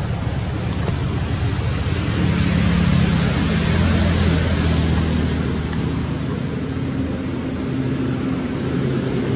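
A motor engine running steadily with a low hum and a hiss over it, its pitch shifting a little about halfway through.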